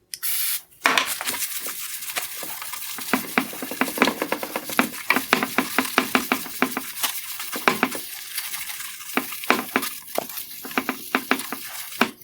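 WD-40 being applied to a faded plastic headlight lens: a short aerosol hiss at the start, then a long run of dense, irregular scratchy crackling as it is sprayed and worked over the lens.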